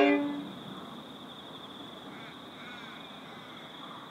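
The tail of a locomotive horn blast dies away about half a second in. Then a steady high insect trill carries on, with a few faint bird calls over it.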